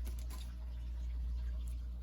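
Faint rustling and sliding of trading cards being handled, over a steady low background hum.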